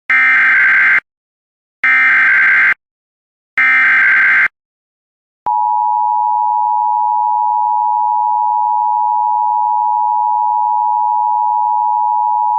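Emergency Alert System SAME header: three loud one-second bursts of screeching digital data, then, about five and a half seconds in, the steady EAS attention tone begins and holds.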